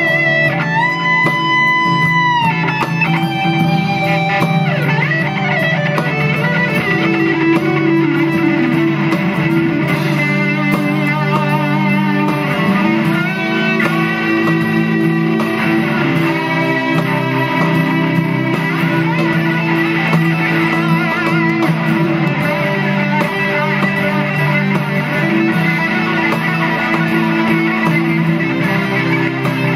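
PRS singlecut trem electric guitar played through overdrive pedals into a Dr. Z amp: a driven lead line of held notes with string bends and vibrato, with a held bent note in the first couple of seconds.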